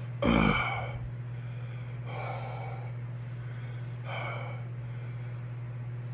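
A man breathing hard through his open mouth from the burn of superhot chocolate primotalli peppers: a sharp, loud gasp just after the start, then two softer breaths about two seconds apart.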